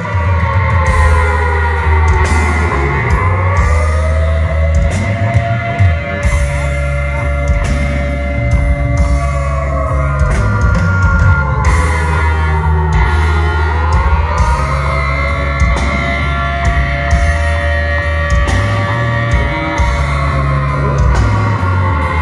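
Rock music with electric guitar and drums over a heavy bass line; the melody slides down and climbs back up twice.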